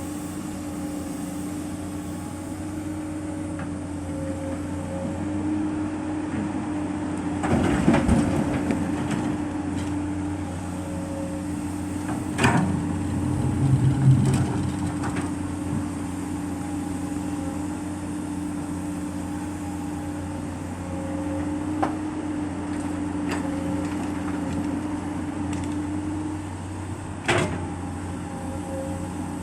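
Komatsu PC200 hydraulic excavator running steadily under its diesel engine while loading, with several sharp knocks and clanks from the working machine, the loudest about halfway through and one near the end.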